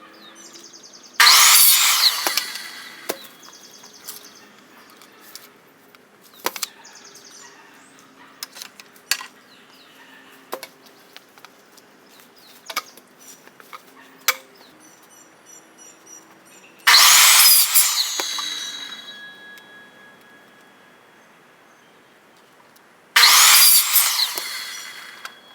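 Power saw cutting 1.5-inch PVC pipe three times. Each cut starts suddenly at full loudness and dies away over a second or two. Between the cuts, light knocks and clicks come from the pipe being handled.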